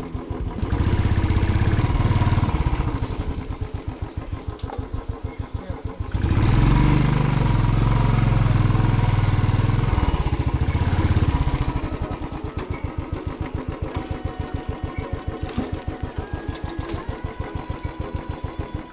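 Motorcycle engine idling with an even pulsing beat. It is throttled up to a louder run twice: from about a second in for two seconds, and again from about six to eleven seconds in.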